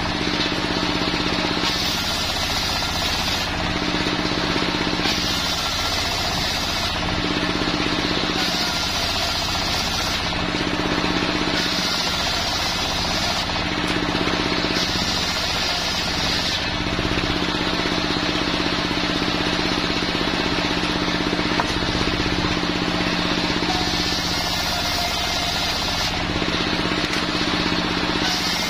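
Homemade circular saw bench, driven by a belted engine, ripping Jenitri wood boards. The engine runs steadily under the blade's noise, and the blade goes in and out of the wood in repeated passes every couple of seconds.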